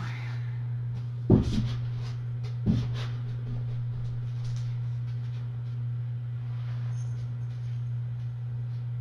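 Two dull thumps about a second and a half apart as a cardboard cat scratcher lounge is set down on carpet, over a steady low hum.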